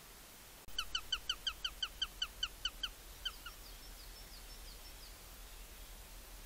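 Male Eurasian sparrowhawk calling: a fast, even series of about a dozen sharp 'kek' notes, roughly five a second over two seconds. Two more notes follow, then a few fainter, higher notes that trail off.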